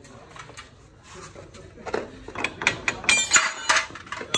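Metal hand tools clinking and clattering against each other and against metal. The sharp knocks come thicker in the second half, with a brief metallic ring about three seconds in.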